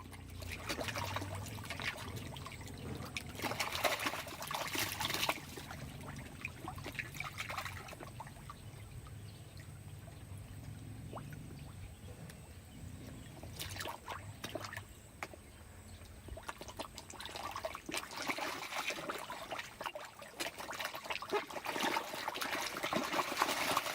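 Water trickling and splashing at the surface, with small clicks and slaps, as fish rise to snatch food. It is busier in the first few seconds and again near the end.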